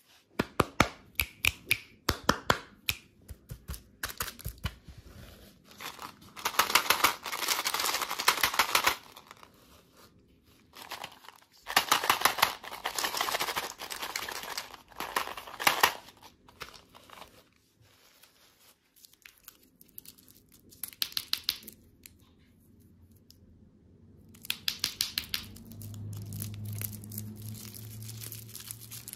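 Hands handling candy packaging: a run of sharp taps on the candy tubes, then bursts of crinkling and rustling from the plastic wrappers and tubes being rubbed and squeezed. A faint low hum joins near the end.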